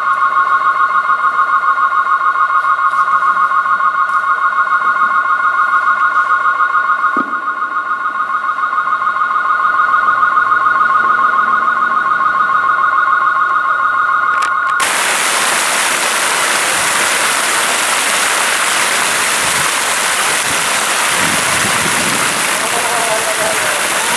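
A steady two-note high tone that pulses rapidly in loudness, which cuts off suddenly about fifteen seconds in. The steady splashing rush of a fountain's water jets falling into its pool takes over.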